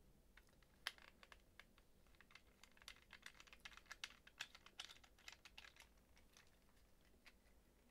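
Faint, irregular little clicks and taps of a translucent plastic device shell being handled and worked on with a small screwdriver, with one sharper click about a second in.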